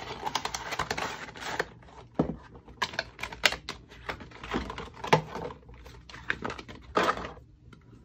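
Paper box and clear plastic clamshell packaging handled and opened: irregular crinkling, rustling and sharp plastic clicks, which die away near the end.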